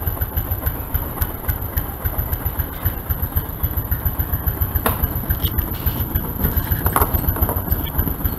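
Yamaha Mio Soul scooter's single-cylinder four-stroke engine, bored up to 135 cc, idling with a steady fast low throb, with two sharp knocks about five and seven seconds in.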